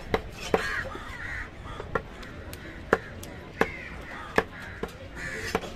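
A heavy cleaver-like knife chopping fish on a thick wooden block, about eight sharp knocks at uneven intervals of roughly half a second to a second. Crows caw in the background.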